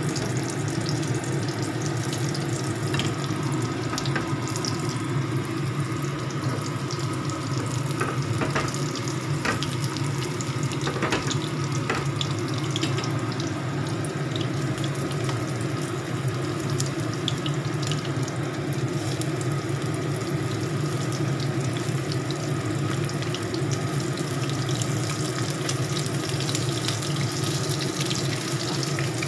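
Battered shrimp deep-frying in oil in a wok: a steady sizzle with scattered small crackles, over a steady low hum.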